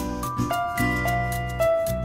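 Background music: a slow melody of held notes that steps to a new pitch every half second or so.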